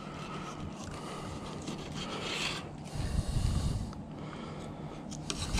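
Fillet knife sliding and scraping along a shark fillet on a cutting board as the skin is cut away from the meat. A brief louder low rumble comes just after halfway.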